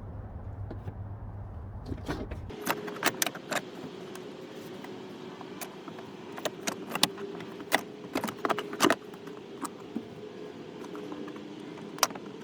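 Irregular sharp clicks, cracks and rattles of plastic interior trim being pried and pulled loose in a 2005 Chrysler Town and Country minivan, starting about two seconds in, over a faint steady hum.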